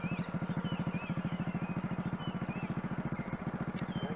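Royal Enfield Bullet's single-cylinder engine running at a steady cruise with a fast, even beat, and small birds chirping over it.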